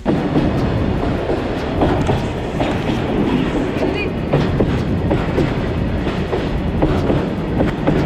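Goods train of bogie tank wagons rolling past at close range, steel wheels clacking over the rail joints in a repeated clatter under a steady rolling noise.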